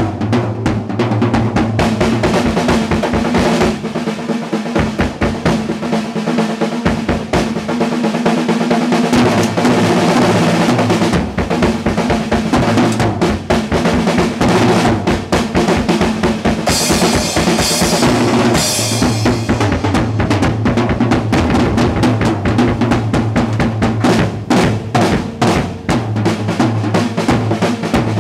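Acoustic drum kit played in a fast, loud drum solo: rapid strokes and rolls on the snare and toms over the bass drum, with cymbals.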